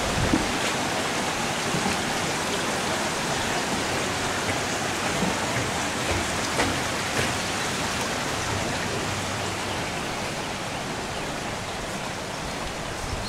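Steady rush of water, easing off slightly near the end.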